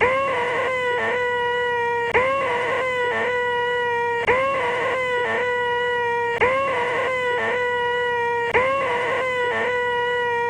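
A man's voice making a nasal, high-pitched "eeeeh" whine held on one pitch: the "most annoying sound in the world". It is looped, the same stretch starting over about every two seconds with a brief break in the middle of each.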